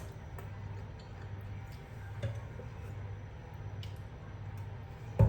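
Faint, scattered clicks and light scrapes of a utensil working stuck pasta out of a pan, over a steady low hum. There is a sharp clatter right at the end.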